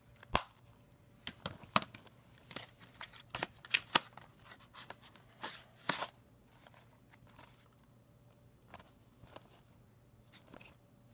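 Clicks, snaps and rustling of a plastic Blu-ray/DVD case and its discs being handled, close by: a quick run of sharp clicks over the first six seconds or so, then only a few scattered ones.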